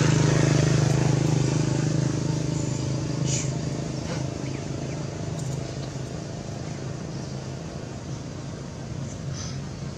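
A motor vehicle engine runs with a steady low hum, loud at first and fading away over the first few seconds.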